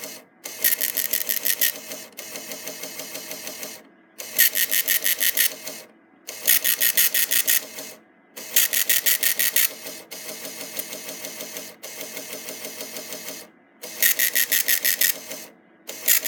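Ribbon impact printer of a TFT EAS 911 encoder/decoder printing an alert report, slowly, line by line. Each line is a burst of rapid, even ticking from the print head, with short gaps between lines and a couple of longer, quieter stretches of steady chatter.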